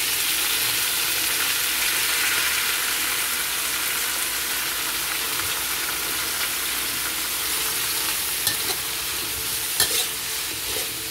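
Carrots and wood ear mushrooms sizzling in hot oil in a wok, stirred with a metal spatula. The sizzle jumps up at the start and then holds steady, with a few sharp scrapes or knocks of the spatula against the wok near the end.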